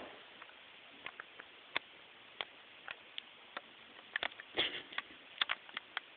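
Black Labrador puppy playing with a hose: scattered sharp clicks and taps at irregular intervals, with a short flurry of them about four seconds in.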